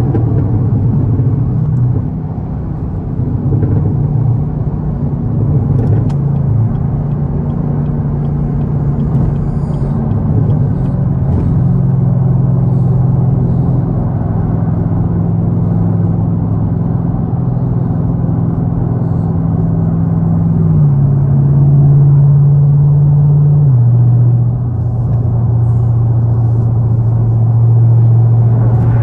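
Nissan Z sports car's engine and road noise heard from inside the car while driving, a steady low drone. The engine note shifts up about a third of the way in, then steps down sharply twice in the last third, as with gear changes.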